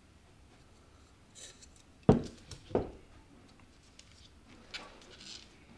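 Two dull knocks a little over half a second apart, about two seconds in, as a stretched canvas and a plastic paint jar are handled on the work table. Light crinkling of the paper covering the table comes before and after them.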